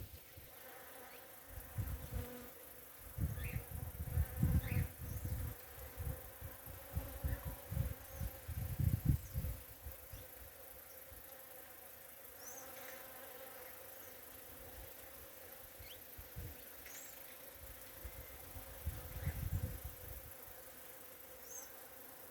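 Bees buzzing steadily as they work flowers. Uneven low rumbles come and go over it, loudest in the first half, and there are a few short high chirps.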